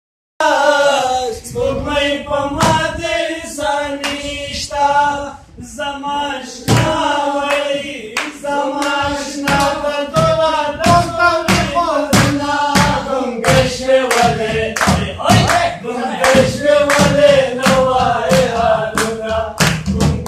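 Men singing a Pashto song without instruments, with a steady rhythm of hand claps, about two a second.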